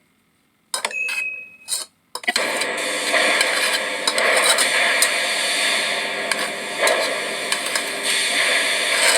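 Metallic clinking and scraping of tools and parts over a steady hiss of workshop noise, setting in about two seconds in.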